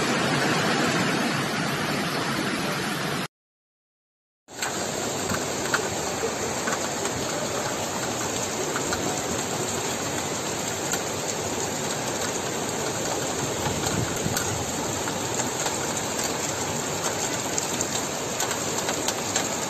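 Heavy rain and rushing floodwater, a steady even noise with faint scattered ticks, broken by about a second of silence just after three seconds in.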